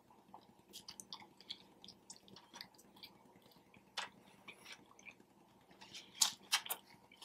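A person chewing a mouthful of sub sandwich close to the microphone: a run of small wet mouth clicks, with a few louder ones about four seconds in and near the end.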